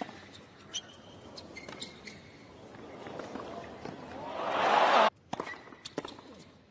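Tennis rally on a hard court: sharp racket-on-ball hits and short shoe squeaks, then a crowd cheering that swells over about two seconds and cuts off abruptly about five seconds in, followed by a few more ball hits.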